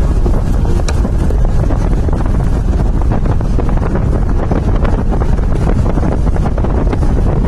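Heavy wind buffeting the microphone of a moving Jeep: a loud, steady low rumble with constant crackle, mixed with the vehicle's running and road noise.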